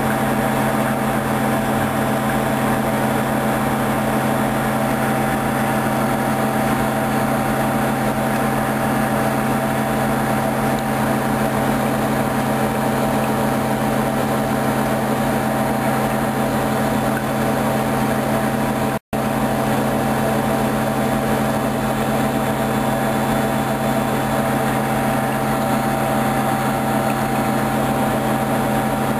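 Hoover DYN 10124 DP washing machine running a high-speed spin: a steady motor hum with constant tones that do not change in pitch. The sound cuts out for an instant about two-thirds of the way through.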